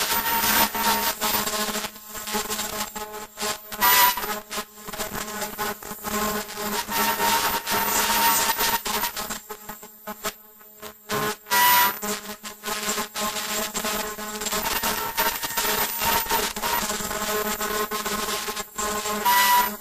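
Small sanitary-napkin sealing and cutting machine running: a steady motor hum under an irregular rasping, rubbing noise from its steel rollers. It drops much quieter for a second or two near the middle, then resumes.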